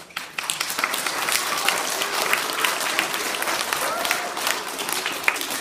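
Audience applauding: many hands clapping together, starting suddenly and holding steady, with a few voices mixed in.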